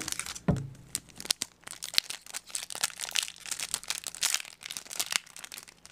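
Foil wrapper of a Yu-Gi-Oh! trading card booster pack crinkling and tearing as it is handled and opened, in quick, irregular crackles.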